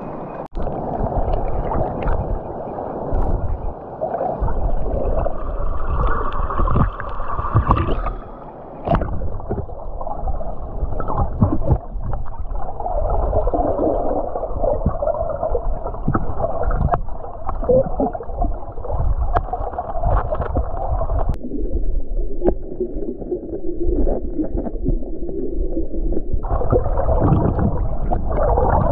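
Underwater sound of a stream heard through a submerged camera: a continuous muffled rumble and gurgle of moving water, with scattered clicks and knocks. The sound is even more muffled for a few seconds past the middle.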